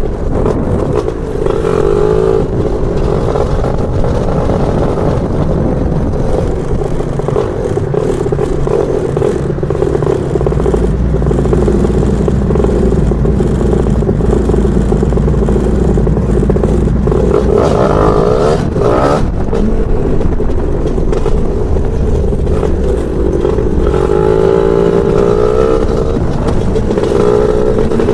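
Lambretta scooter's BFA 325 two-stroke engine running on the road, its note rising and falling as the throttle opens and closes several times.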